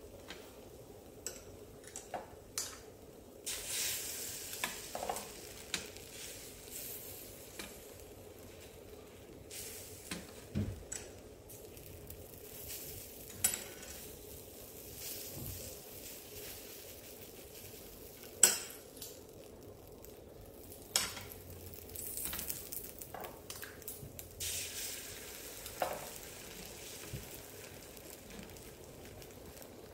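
Beaten egg sizzling in a nonstick frying pan while a spatula scrapes and rolls the omelette, with several sharp clacks of the spatula against the pan. The sizzle swells in a few stretches.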